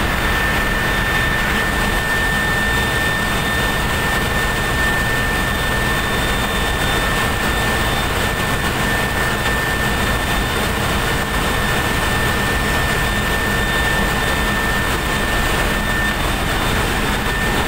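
Steady loud drone of running machinery: an even rushing noise with a constant high whine over it.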